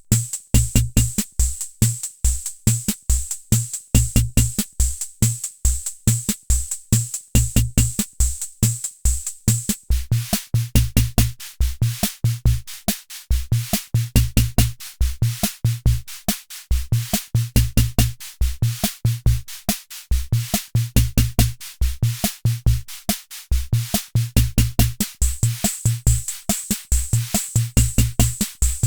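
Hammond Auto-Vari 64 analog rhythm machine playing a preset beat: pitched electronic bass-drum and tom thumps under fast, steady hi-hat ticks. About ten seconds in the pattern changes to a busier variation, with more hissy cymbal and snare hits on top.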